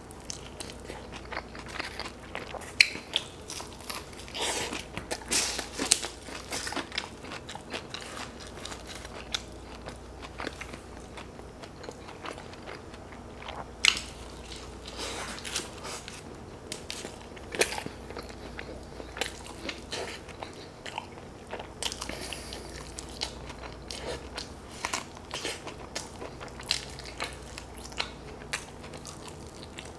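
Close-miked eating of crispy fried Buffalo chicken wings and pepperoni pizza: irregular crunching bites and wet chewing. The sharpest crunches come about 3, 6 and 14 seconds in.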